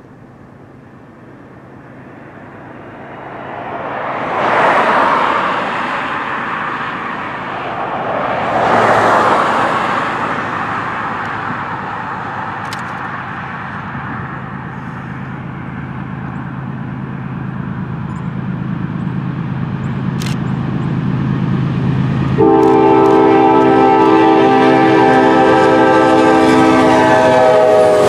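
A freight train approaches with a low rumble that builds steadily, after two loud rushing swells of noise. Near the end the locomotive's air horn suddenly sounds a loud, steady chord of several notes and holds it.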